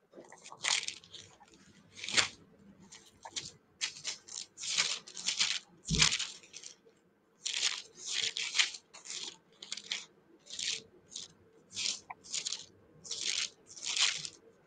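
Bible pages being leafed through: a quick, irregular run of short papery rustles, with a soft bump about six seconds in.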